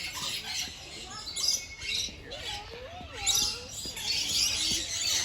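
Parrots calling in an aviary: harsh squawks mixed with many short whistled chirps and glides.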